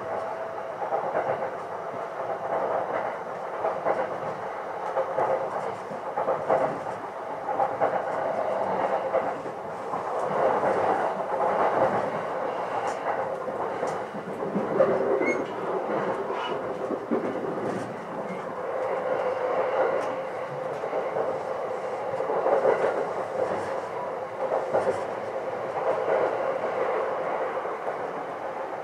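Running noise of an E233-3000 series electric commuter train heard from inside its double-deck Green car: a steady, fluctuating rumble of wheels on rails at speed, with now and then a faint click from the track.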